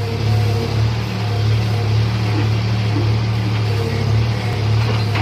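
John Deere 5310 tractor's diesel engine running steadily.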